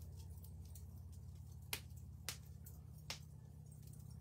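Wood fire crackling on a bed of coals, with three sharp pops: one about a second and a half in, another just over two seconds in, and one about three seconds in, over a low steady hum.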